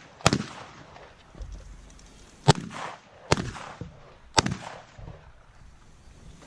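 Four shotgun shots fired at an uneven pace, each a sharp report with a brief ringing tail: one right at the start, then three more close together a couple of seconds later.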